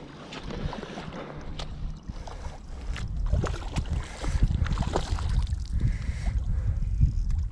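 Wind rumbling on the microphone over moving sea water, with gusts growing louder about three seconds in.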